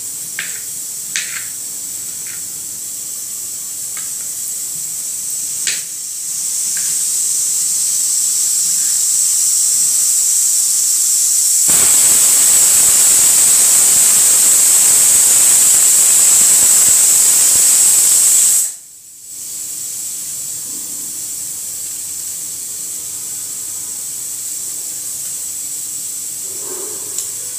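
Stovetop pressure cooker with dal inside, letting off steam as pressure builds. A hiss swells from about six seconds in, becomes a loud jet of steam for about seven seconds, then cuts off suddenly. A few light knife taps on a plastic cutting board come in the first seconds.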